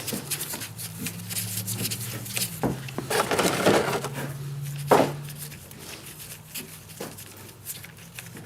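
Tools knocking and scraping at a dirt bike's oil drain bolt as it is worked free, with a denser rush of noise about three seconds in and a sharp knock about five seconds in; a low steady hum runs underneath.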